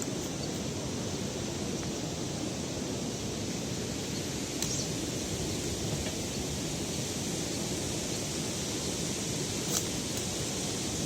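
Steady outdoor rushing noise, even and unbroken, with a couple of faint brief ticks about halfway and near the end.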